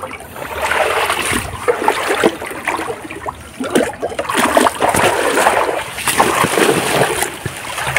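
Shallow river water splashing and sloshing in irregular bursts, stirred by someone catching shrimp by hand in the stream.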